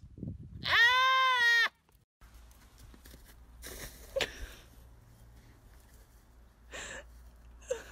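A goat gives one loud, long bleat about a second in. A few faint short noises follow later.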